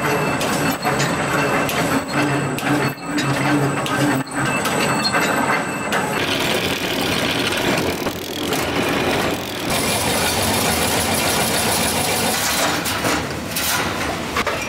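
Automatic barbed-wire and chain-link fence machines running, a steady mechanical clatter of gears and wire-forming heads with a low hum and occasional sharp knocks. The sound changes abruptly about six seconds in and again near ten seconds.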